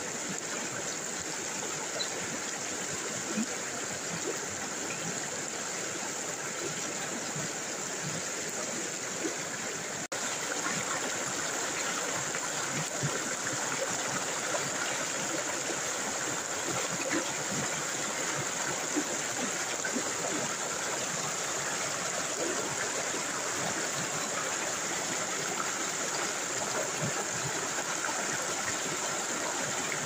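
River rapids rushing over rocks: a steady, even rush of white water. About ten seconds in there is a short break, after which it runs on a little louder.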